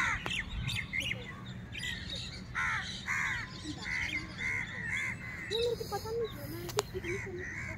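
Several crows cawing over and over, short harsh calls about every half second, at times overlapping.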